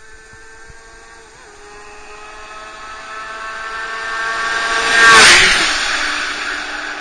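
A motorcycle engine at high revs approaching, growing steadily louder, then rushing past close about five seconds in, its note dropping in pitch as it goes away.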